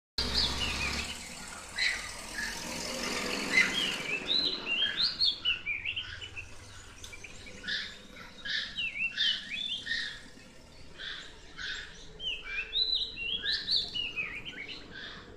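Birds chirping and singing in trees, short sliding whistled notes repeated in quick runs. A steady hiss sits under them for the first few seconds.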